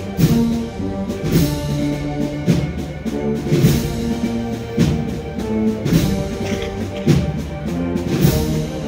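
Wind band playing a slow processional march: held brass and woodwind notes over a drum and cymbal stroke a little more than once a second.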